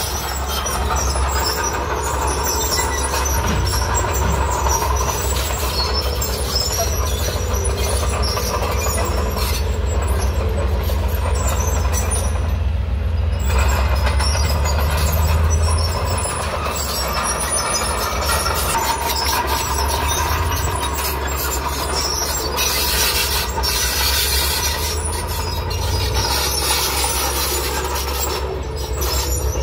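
Komatsu D30P crawler bulldozer working, its diesel engine running steadily under load while the steel tracks squeal and clank.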